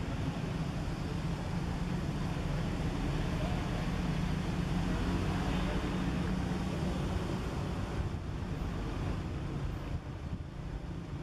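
A motor vehicle engine running nearby: a steady low rumble that swells in the middle and drops off about ten seconds in.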